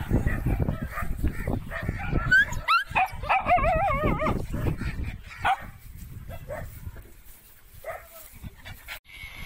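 Small dog whining and yipping: a wavering, warbling whine about two to four seconds in, then a few short yips.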